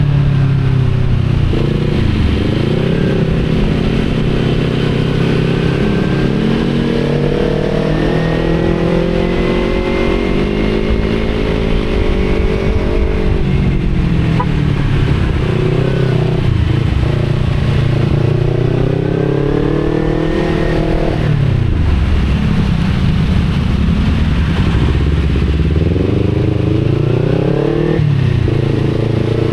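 Kawasaki Z250 motorcycle engine through an Akrapovic exhaust, heard from the rider's action camera with wind noise, its note rising and falling as it revs through the gears in traffic. The revs drop low about twenty seconds in, then climb again.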